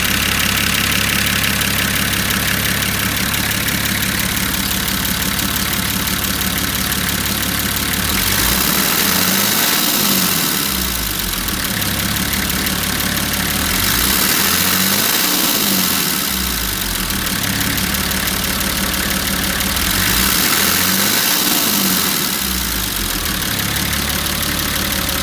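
Nissan TD42 inline-six diesel engine idling, revved up and let fall back to idle three times, about six seconds apart.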